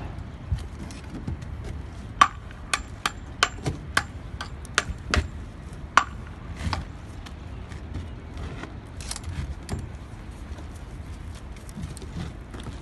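Sharp metallic taps and knocks on concrete block as a mason beds and settles a block on the wall. There are about ten quick strikes over some four seconds starting about two seconds in, then fainter knocks and scraping, over steady low street noise.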